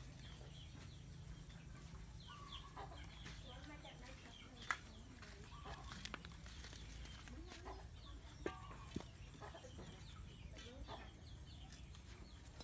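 A knife cutting water snake on a round wooden chopping board, with a few sharp knocks; the loudest comes a little over a third of the way in and two more follow about two-thirds in. Short bird calls are scattered throughout, typical of fowl clucking.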